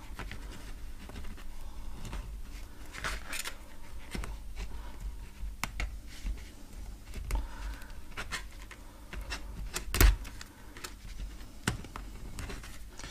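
Small clicks, scrapes and rustles of fingers working the ends of thin insulated wires on an actuator motor's cable, with a sharper click about ten seconds in.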